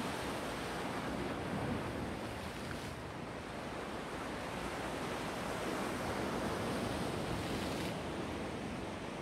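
Black Sea surf: a steady rush of waves washing in, swelling about a second and a half in and again from about six to eight seconds.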